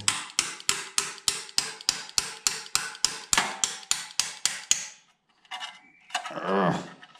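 A hammer pounding a tight crankshaft locking pin into its hole in a BMW N52 engine block, about seventeen sharp, evenly paced strikes at roughly three and a half a second that stop about five seconds in. The pin is stuck and won't slide in by hand.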